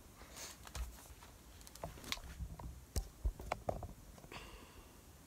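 Handling noise: soft rustles of a fleece blanket and scattered taps and knocks as the camera is moved and repositioned, with two sharper knocks about three seconds in.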